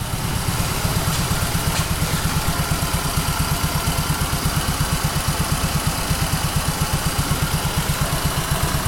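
Redcat CT70-clone mini bike's small single-cylinder engine idling, a steady, even pulsing several beats a second.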